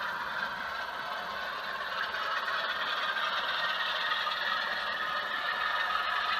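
A diesel engine sound from an OO gauge model locomotive's DCC sound decoder (Legomanbiffo sound file), running steadily as the locomotive hauls wagons along the track and growing slightly louder as it approaches.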